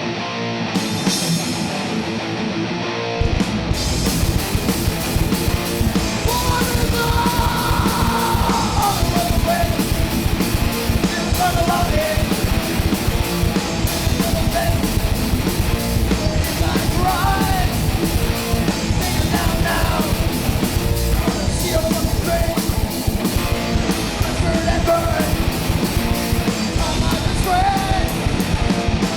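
A live punk rock band playing: electric guitar at first, then drums and bass come in hard about three seconds in and the full band plays on loudly, with singing.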